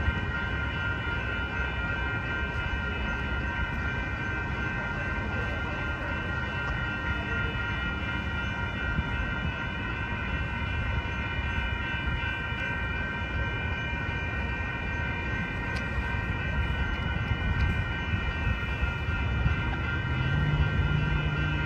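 Railroad grade-crossing warning bells ringing steadily over a low rumble; a low steady drone comes in near the end.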